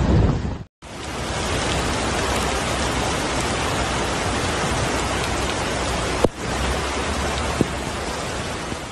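Steady hiss of heavy rain and floodwater churning across a street. The sound cuts out briefly just under a second in, and a single sharp click comes about six seconds in.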